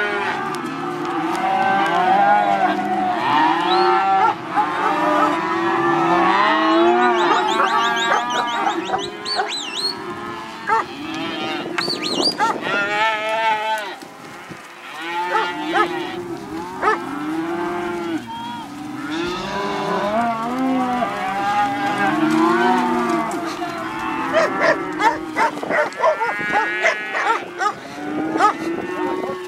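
A mob of calves, Hereford and black, bawling constantly while being driven, with many calls overlapping and a brief lull about halfway through.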